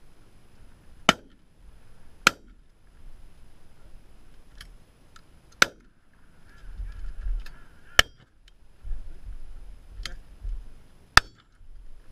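Shotgun shots: six sharp reports over about ten seconds, some louder and nearer than others, with wind rumbling on the microphone between them.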